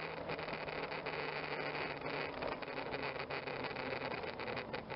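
Honda Gold Wing motorcycle riding along at town speed: a steady engine hum under wind noise on the bike-mounted microphone.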